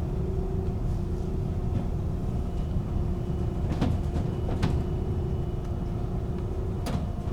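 Steady low rumble and hum of a long-distance car ferry under way, heard from inside the ship, with a few light clicks or knocks.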